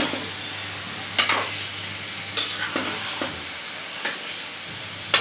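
Chicken pieces sizzling in hot mustard oil in a steel kadai, stirred with a metal slotted spoon that scrapes and knocks against the pan several times.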